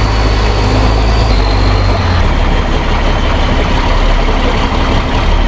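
Tow truck's engine running steadily at low revs while the truck reverses slowly, with a thin high whine that stops about two seconds in.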